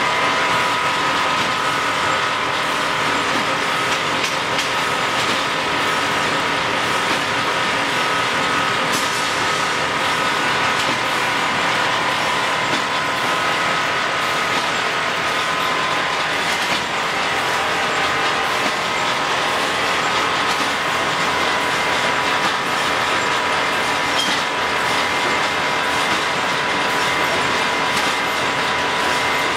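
YB-1500A automatic wire mesh welding machine running: continuous mechanical clatter as it feeds and welds steel wire into mesh, with a steady high whine running through it.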